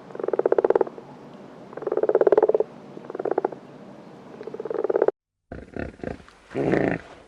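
A farm animal's rasping, pulsing calls, about five in a row and each under a second long, then a sudden break followed by a couple of short grunts near the end.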